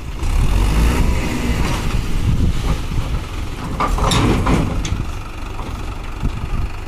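Swaraj 843 XM tractor's three-cylinder diesel engine running steadily as it tows a tipping trailer forward with the bed raised, dumping soil. A brief higher-pitched noise stands out about four seconds in.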